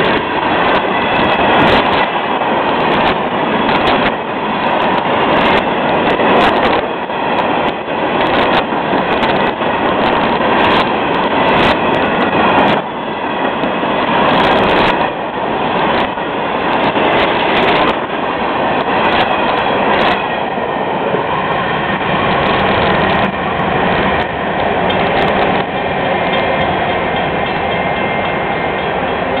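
Freight cars of a Florida East Coast Railway train rolling past at close range: a steady wheel-on-rail rolling noise with repeated clacks as the wheels cross rail joints, and faint high squealing tones from the wheels. The clacks thin out in the last few seconds as the end of the train passes.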